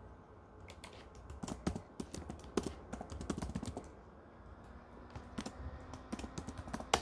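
Typing on a computer keyboard: irregular runs of key clicks, busiest from about one and a half to four seconds in, with another flurry of keystrokes near the end.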